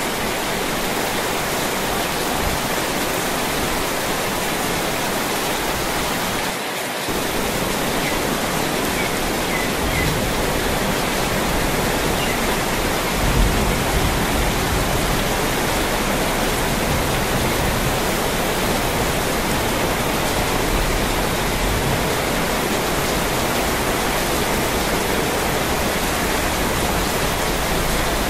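Heavy rain pouring down steadily, a dense, even hiss of rain on the pavement and roofs, with a low rumble added from about halfway through.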